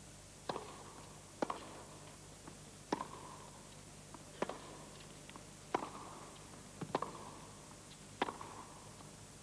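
Tennis rally: a serve and then a ball struck back and forth with rackets, about seven sharp hits a second to a second and a half apart.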